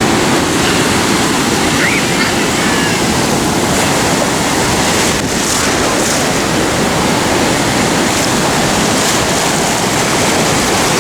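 Ocean surf, waves washing in as a steady, loud rush.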